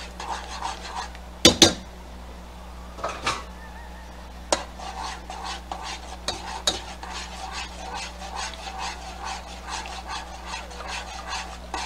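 A spoon stirring thickened broth in a saucepan, scraping and clinking against the pot's sides and bottom at about two strokes a second. A few sharper clicks come in the first seven seconds.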